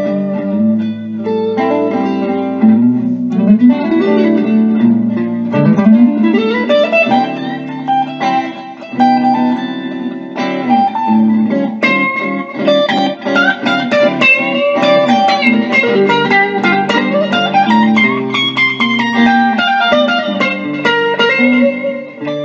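Electric guitar playing a blues solo, single notes picked in quick runs with several notes bent up and back down in pitch, over lower held notes.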